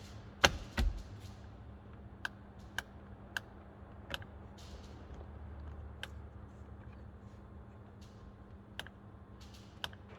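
Hand tools and the steering wheel's plastic parts being handled: two loud knocks about half a second in, then scattered single sharp clicks, as the screws holding the airbag are worked.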